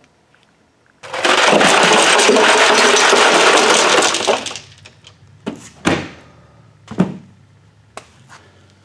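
Loose ice cubes clattering in a plastic cooler for about three seconds, then a few separate knocks.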